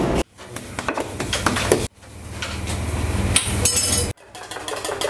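Kitchen sounds of metal cookware: sharp clanks and scrapes of utensils on pans over gas burners, with a cluster of ringing metallic strikes shortly before the four-second mark, over a low steady hum. The sound cuts off abruptly twice at edits.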